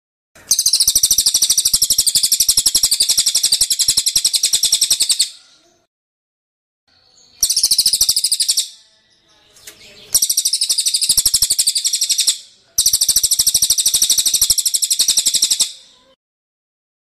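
High, fast rattling trills from a songbird on a cililin-versus-kapas-tembak bird-training (masteran) recording. There are four bursts, the first about five seconds long and the rest one to three seconds, separated by short silences.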